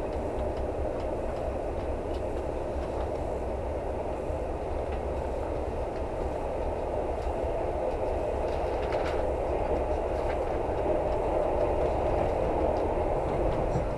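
Passenger train running at speed, heard from inside the carriage: a steady rumble of wheels on the rails that grows a little louder near the end.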